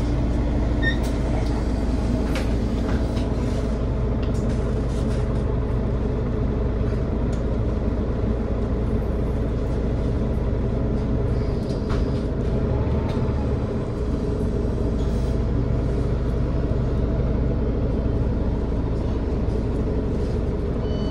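Mercedes-Benz Citaro O530 city bus under way, heard from inside the passenger cabin: a steady low engine drone with scattered clicks and rattles from the interior, the low drone easing briefly about twelve seconds in.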